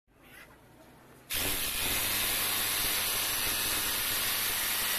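Rotary hammer drill boring into a concrete paving block with a masonry bit, test-run after a piston replacement. It starts faintly, then cuts in loud about a second in and runs steadily.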